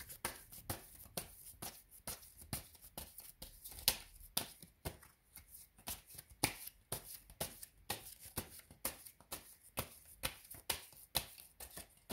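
A deck of tarot cards being shuffled by hand: an uneven, continuous run of short card clicks and slaps, about three or four a second.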